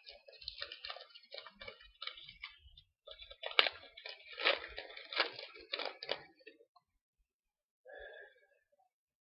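Foil trading-card pack being torn open and crinkled in the hands, loudest from about three seconds in, with one sharp crackle. The rustling dies away well before the end.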